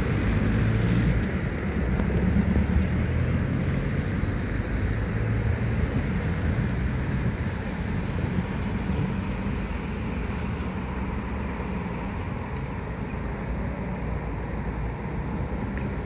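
Rail multi-purpose vehicle (MPV) moving away along the track, its engine running low and steady and slowly fading.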